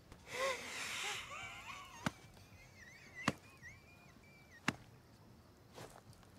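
A man's breathy gasp, then faint, high, strained squeaks in the throat, like a scream with no voice behind it. Three sharp clicks come about a second and a half apart.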